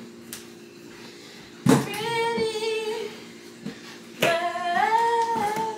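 A woman's voice singing or humming two long, wavering notes, the second rising in pitch before it levels off.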